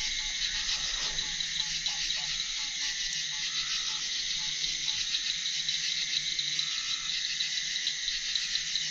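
Steady night chorus of insects: a dense, high, pulsing chirring without a break.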